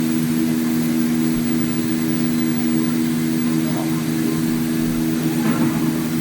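H-2610L CNC plate sawing and milling machine running with a steady hum at one constant pitch.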